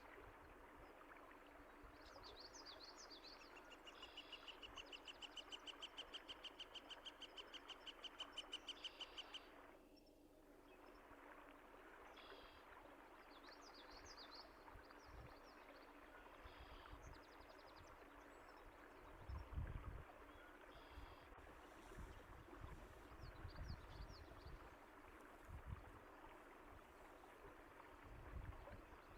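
Steady rush of a flowing stream with small songbirds chirping over it. From about 4 to 9 seconds one bird gives a fast trill of rapidly repeated notes, and low rumbles come and go in the second half.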